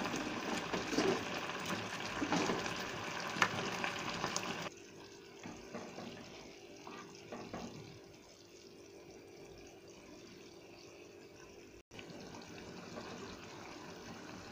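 Thick sauce bubbling and sloshing in a nonstick pan as vegetable Manchurian balls are stirred in with a slotted spatula, with a sharp tick a little over three seconds in. About five seconds in it drops abruptly to a quieter simmer, with a brief cut-out near the end.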